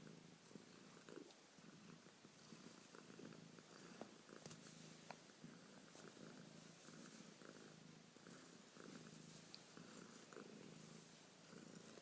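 A domestic cat purring softly, a low purr pulsing in a steady rhythm, with a few faint clicks about halfway through.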